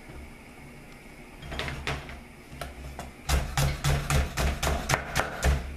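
Chef's knife chopping a root vegetable on a wooden cutting board. A few scattered strikes come first, then from the middle on a quick, even run of about five chops a second, each a sharp knock with a dull thud from the board.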